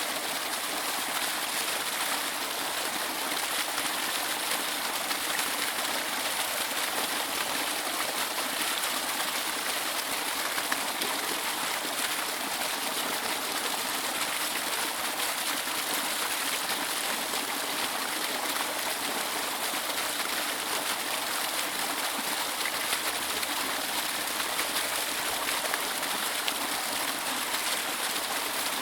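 Waterfall rushing steadily: an unbroken hiss of falling water, mostly high with little deep rumble.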